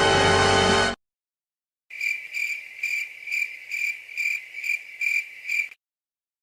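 Cricket chirping, the stock 'crickets' sound effect: a high pulsing chirp about twice a second for nearly four seconds. It follows the tail of a music clip that cuts off about a second in.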